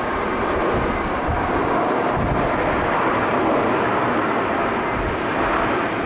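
Airbus A350 jet engines running steadily as the airliner rolls along the runway, a dense rushing noise, with gusts of wind buffeting the microphone.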